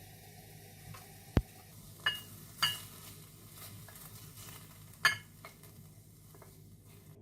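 Kitchen clatter: a dull knock, then a few sharp clinks of a utensil or dish against tableware, with a faint steady hiss behind.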